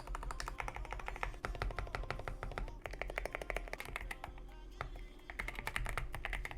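Fast typing on a GMK67 gasket-mount custom mechanical keyboard with added foam: a rapid run of keystroke clacks, thinning out briefly in the middle and picking up again near the end. Background music plays underneath.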